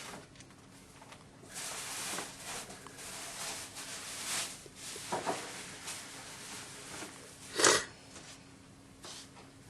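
A newborn baby sneezes once, short and sharp, about three-quarters of the way in, with soft rustling noise before it.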